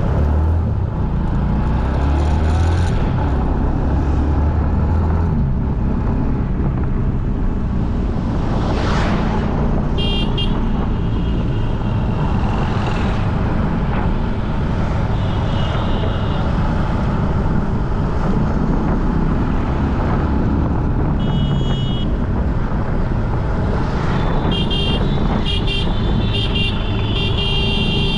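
Busy road traffic with a steady rumble of engines and tyres, one vehicle passing close by, and car horns honking several times, most often near the end.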